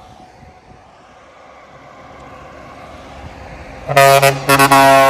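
Truck horn sounding two loud blasts near the end, the second a little longer, over a quiet low background.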